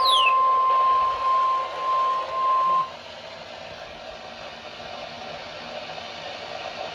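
NOAA Weather Radio warning alarm tone heard through a weather radio receiver: one steady beep-like tone that cuts off about three seconds in, with a brief falling whistle at the very start. After the tone stops, only the receiver's faint hiss is left.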